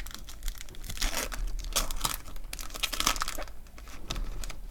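Foil trading-card pack being torn open and crinkled in the hands, an irregular run of rustling and crackling.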